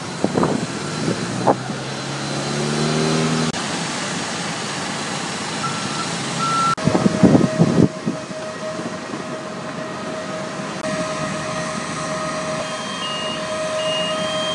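Airport apron noise from ground vehicles such as the airstair truck: engines running, a steady whine from about halfway, and an electronic beeping that alternates between two notes in the last couple of seconds.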